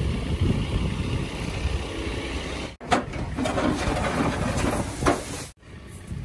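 A vehicle engine running steadily with a low rumble. The sound cuts out abruptly twice and is quieter after the second break, near the end.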